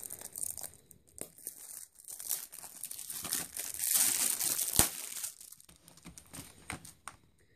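Clear plastic shrink wrap being torn and peeled off a Blu-ray case: scattered crinkling and crackling, busiest in the middle of the stretch, with one sharp click about two-thirds of the way through.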